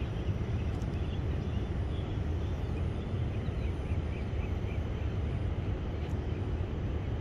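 Steady low outdoor rumble, like wind on the microphone or distant traffic, with a short run of faint high bird chirps about three and a half seconds in.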